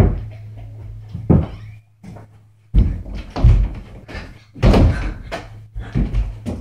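A series of heavy thuds from a boy's running and jumping footsteps and a mini basketball striking an over-the-door hoop on a closet door.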